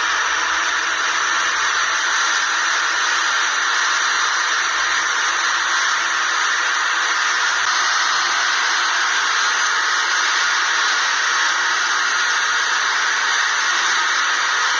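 Britania electric blender running at steady speed, whirring through liquid chocolate cake batter, then cutting off suddenly at the end.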